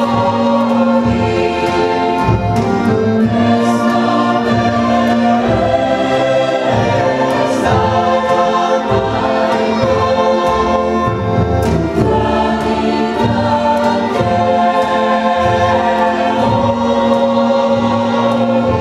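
Mixed folk choir singing a Macedonian folk song in sustained, held lines with a low held drone note. A small folk band with fiddles and double bass accompanies.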